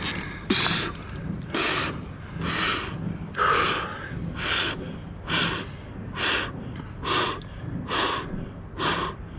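A freediver's recovery breathing straight after surfacing from a static apnea breath-hold of just over five minutes: quick, forceful gasping breaths, about one a second, in a steady rhythm.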